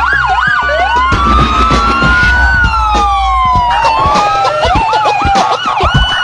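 Several emergency-vehicle sirens sounding together. Slow rising and falling wails overlap with a faster warbling siren, over a low rumble in the first part.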